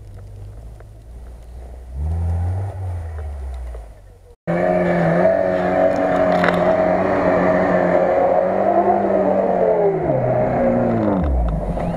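Lada Niva 4x4's engine running hard at high, steady revs while driving on snow, its pitch falling as it eases off near the end. It comes in abruptly a little over four seconds in, after a quieter, lower engine sound.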